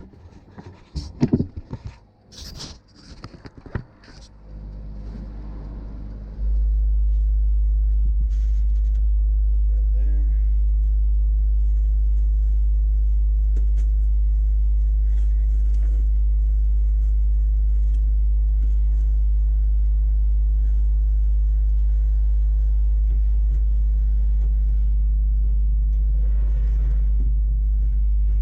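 A few knocks and handling clicks, then a loud, perfectly steady low hum that starts abruptly about six seconds in and holds without change until it cuts off at the end.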